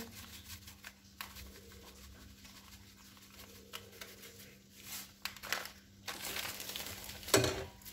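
Plastic sachet of powdered broth crinkling with faint light ticks as the powder is shaken out over a wok. There is a short louder knock near the end.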